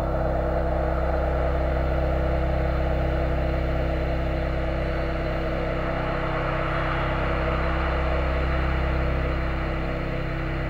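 Steady low droning sound from an ambient horror film score, a held cluster of deep tones that does not change.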